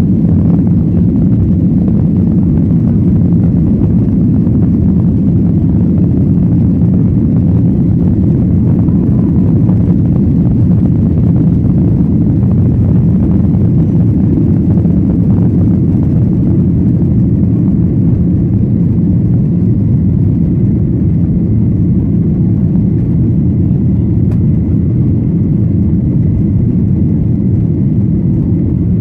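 Steady cabin roar of a Boeing 737-900ER in flight: the CFM56 jet engines and the airflow over the fuselage make a loud, even low rumble with a hiss above it.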